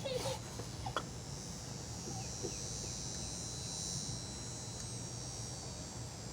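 High insect buzzing that swells for a couple of seconds and then fades, over a steady low hum, with a single short click about a second in.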